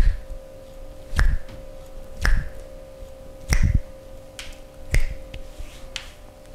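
Five sharp percussive hand strikes on the body during a massage, about a second apart, each a crisp smack with a dull thump under it.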